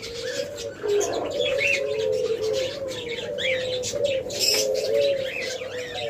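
Many diamond doves cooing together, soft low coos overlapping into an almost unbroken wavering drone, with scattered short higher chirps over them.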